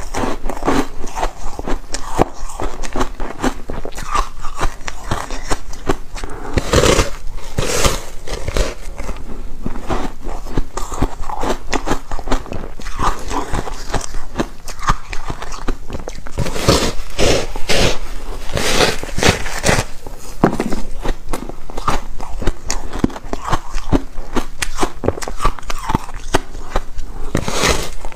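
Foam ice being bitten and chewed: a steady run of crisp crunching and crackling bites, with louder clusters of crunches now and then.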